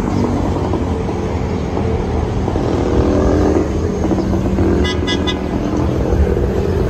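A vehicle engine running amid street traffic, a steady low rumble and hum. About five seconds in come three quick, high beeps.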